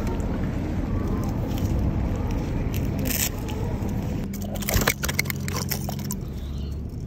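Steady low rumble on the microphone, with a cluster of sharp handling clicks and scrapes about four to five seconds in as a freshly caught pike is taken in hand.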